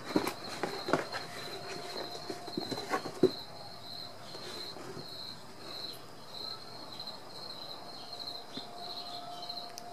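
Kittens playing with plastic ball-track toys on carpet: a quick run of clicks and knocks in the first three seconds, then softer rustling. Under it a high, regular chirping repeats a couple of times a second.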